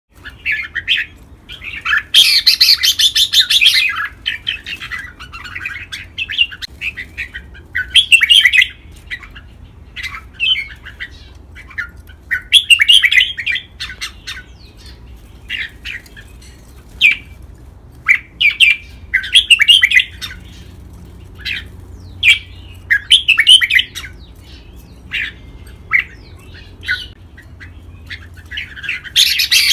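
Red-whiskered bulbul song: short, bright, chattering phrases repeated every second or two. A louder, denser burst comes about two seconds in and another near the end. This is the lively song keepers play to train and excite caged bulbuls.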